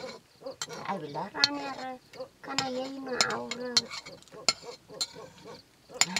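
Metal spatula scraping and clinking against a metal cooking pot as food is stirred over a wood fire, a sharp scrape or clink every half second to second. A few short pitched calls sound in the background near the middle.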